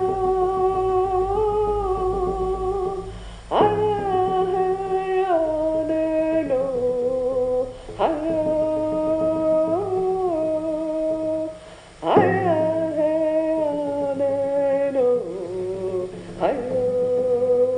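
A voice humming a slow, wordless melody in long held notes that step up and down between pitches, with a new phrase starting about every four seconds.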